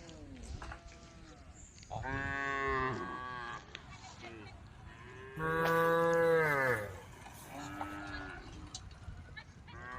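Cows mooing: several long moos, the loudest about halfway through, each sliding down in pitch as it ends.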